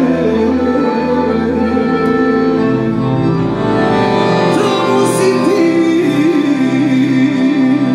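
Scandalli piano accordion playing a melody over sustained notes and chords.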